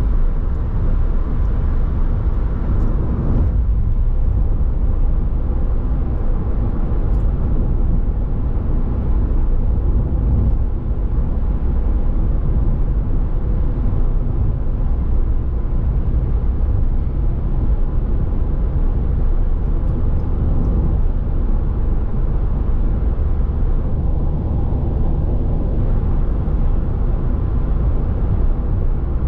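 Steady driving noise of a car on the move: engine and tyre rumble, heavy in the low end and unbroken throughout.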